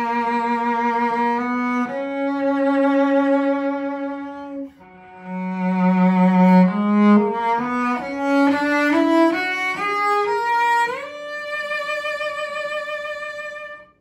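French cello made in Mirecourt around 1900, played with the bow: long held notes with vibrato, then a quick rising run of notes about halfway through, ending on a long high held note.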